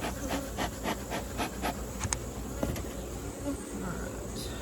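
A bee smoker's bellows being pumped in quick puffs, about four a second, stopping a little under two seconds in, over the steady buzzing of honeybees from an opened hive. A couple of light clicks follow.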